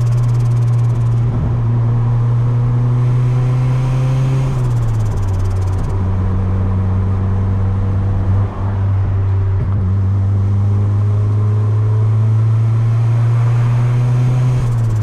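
Turbocharged Honda Civic D16Y8 1.6-litre four-cylinder running at steady low revs while cruising. Its pitch steps down slightly about five seconds in and again near the end, and the sound dips briefly a little past the middle.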